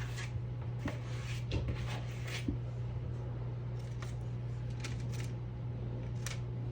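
Light kitchen handling sounds while cookie dough is being readied on a tray: a few faint scattered clicks and rubs over a steady low hum.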